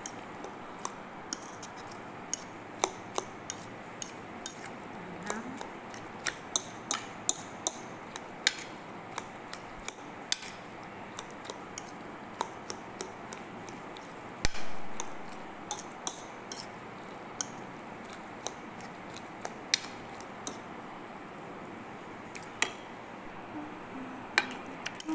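Metal spoon mixing chopped eggplant salad in a bowl: irregular light clinks of the spoon against the bowl every second or so, with one louder knock about halfway through.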